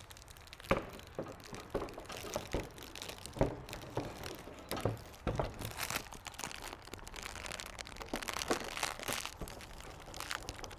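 Irregular sharp plastic clicks and knocks with rustling, as a car headlight assembly is handled and pushed into place on its mounts.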